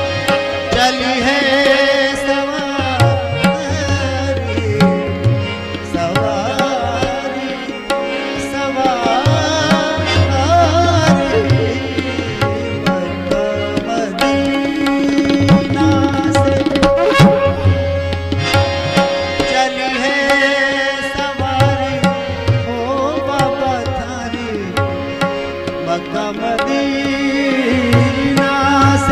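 Qawwali music: tabla drumming a continuous rhythm under a melodic accompaniment of held and wavering tones.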